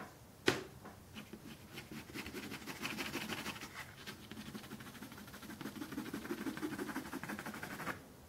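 Brown watercolour pencil shading on textured watercolour paper: a quick run of even, scratchy strokes that stops just before the end, after a single click about half a second in.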